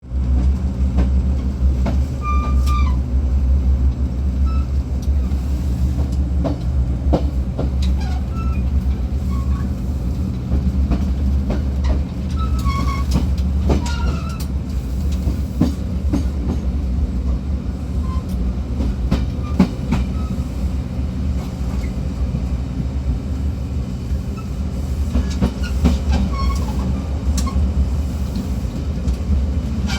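Diesel multiple-unit train heard at the gangway between two carriages while under way. A steady low rumble of engine and running gear runs throughout, broken by scattered knocks and short high squeaks.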